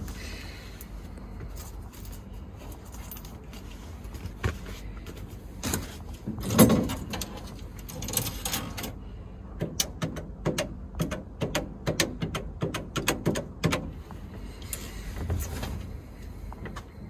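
Green public payphone being handled and dialled: scattered knocks and a louder clunk, then from about ten seconds in a quick run of sharp clicks as its push buttons are pressed to dial a number.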